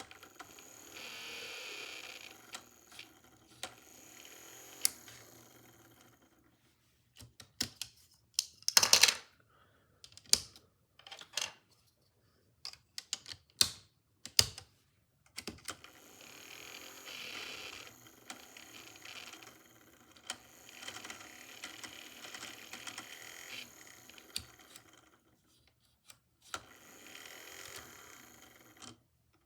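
Small Snap Circuits toy motor with its fan whining in stretches that start and stop, broken up by a run of sharp plastic clicks and knocks from parts being snapped and handled.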